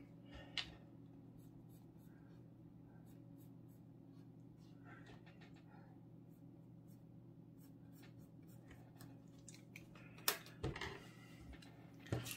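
Mechanical pencil scratching faintly on paper as short lines are drawn, over a low steady hum. A few louder taps and knocks near the end as the pencil is set down and the paper handled.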